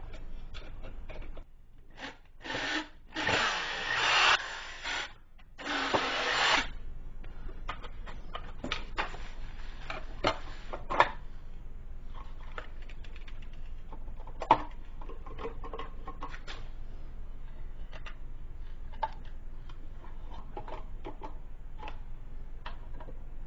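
Hand-work noises from fitting a toggle switch and its wiring into a steel electrical box: several seconds of rough rubbing and scraping, then scattered light clicks and taps from the switch, wires and metal box.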